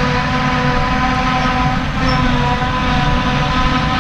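Claas Jaguar 940 self-propelled forage harvester at work chopping grass: engine and chopping machinery running steadily with a loud, multi-pitched whine over a low rumble.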